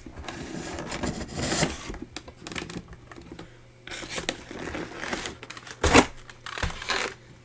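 A cardboard product box being opened by hand: the flaps and card scrape and rustle and plastic packaging crinkles in irregular spurts, with one sharp knock near the end.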